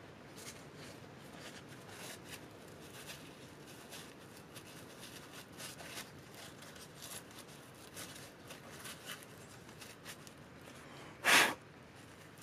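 Faint scattered clicks and rustles of gloved hands and a rag working a rubber brake hose through its bracket on the strut, with one short, loud rush of noise about eleven seconds in.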